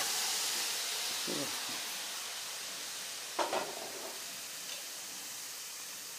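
Raw chicken pieces sizzling in a hot, dry karahi with no oil or ghee: a steady hiss that slowly fades. A brief clatter a little over three seconds in.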